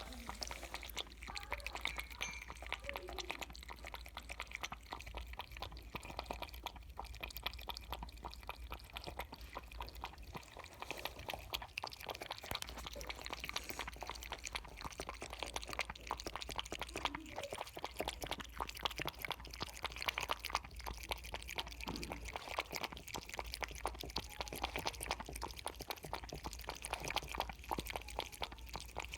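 Kitten lapping milk: a rapid, continuous run of small wet clicks from its tongue.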